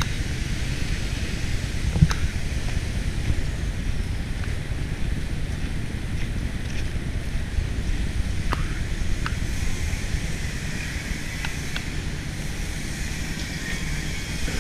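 Wind rumbling on the microphone, with a few faint clicks and knocks.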